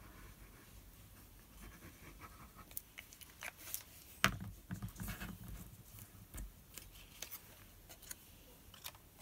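Faint crafting sounds of paper and a liquid-glue bottle being handled on a cutting mat: light taps and soft paper rustles, with one sharper knock about four seconds in.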